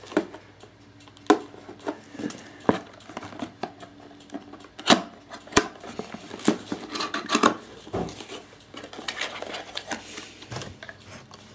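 Small cardboard product box being handled and opened: tape picked off the top and the end flap pulled open. Sharp, irregular clicks and taps of card and fingernails, with some scraping and rustling of cardboard.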